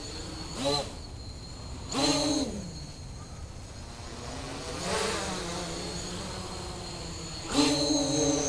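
Quadcopter with Multistar 2213 980kv motors spinning 9x4.7-inch nylon propellers in flight: a steady high whine, with four throttle surges whose pitch falls away as each one eases, the longest near the end.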